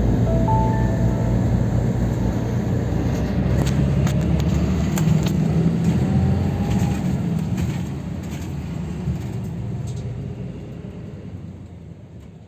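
Steady low rumble of motor traffic, fading out over the last few seconds.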